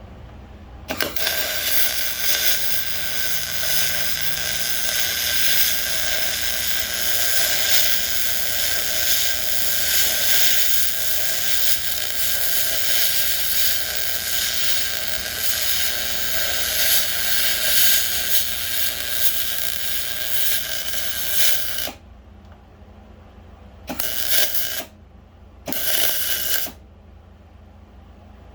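A small motor-driven gear mechanism runs steadily with a constant whine for about twenty seconds, then stops suddenly and gives two short bursts a couple of seconds apart.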